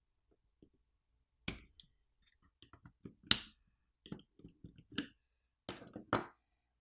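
Scattered clicks and light knocks of small plastic parts and tools being handled while a video doorbell is taken apart; the two loudest knocks come about halfway through and near the end.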